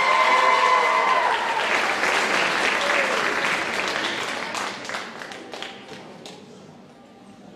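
Audience applauding, with a few shouts in the first second or so; the clapping is loudest at the start and dies away over about six seconds.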